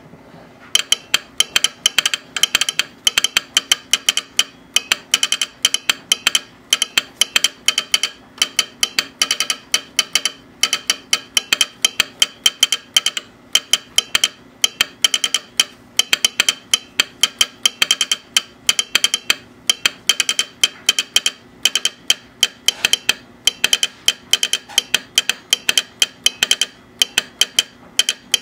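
Telegraph sounder clicking out American Morse code: quick runs of sharp clicks with short gaps between characters and words, over a faint steady hum.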